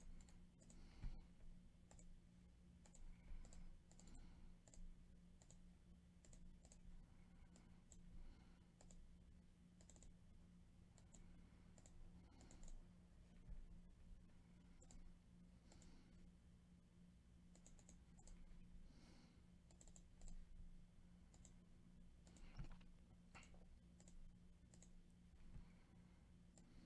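Faint, irregular clicks of a computer mouse and keyboard, over a steady low electrical hum.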